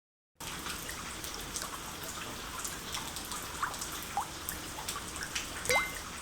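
Cartoon ambience of steady rain with scattered drips, starting just after a moment of dead silence. A few short, faint rising chirps sound over the rain.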